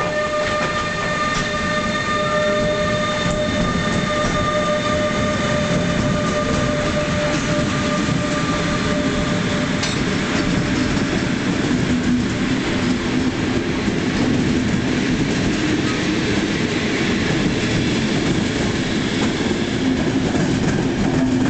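EU43 (Bombardier TRAXX) electric locomotive hauling a passenger train out of a station, its traction equipment giving several steady whining tones that fade out about halfway through. The passenger coaches then roll past with continuous wheel-on-rail rumble and clatter.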